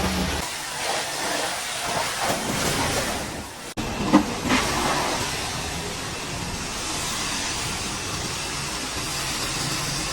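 High-pressure washer jet spraying water against a truck's bodywork: a loud, steady hiss that cuts out abruptly a little under four seconds in and comes straight back with a brief louder burst.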